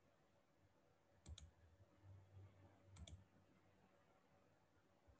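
Computer mouse button clicks: two quick double clicks, about a second in and again about three seconds in, over faint room hum.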